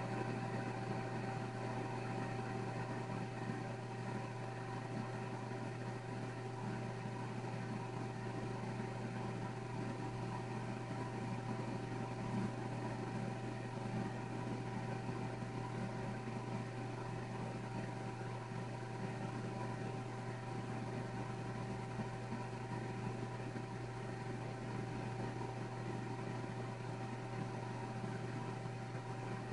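Steady low machine hum with a few held tones.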